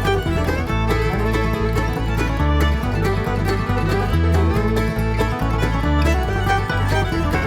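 Background music in a bluegrass style, with banjo, fiddle and guitar over a bass line that moves note by note at a steady pace.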